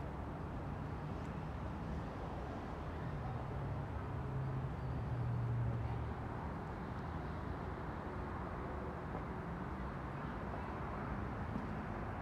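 Steady low rumble and hiss of outdoor background noise, with a low hum that swells for a couple of seconds about four to six seconds in.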